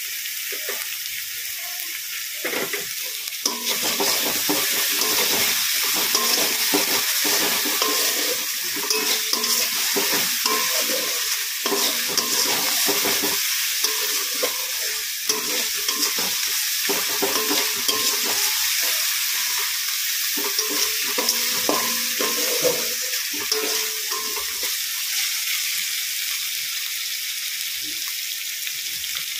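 Spiced onion masala with tomato sauce sizzling in oil in a kadai, being stirred and scraped with a spatula. The frying hiss is steady, and the irregular scraping of the stirring comes in a few seconds in.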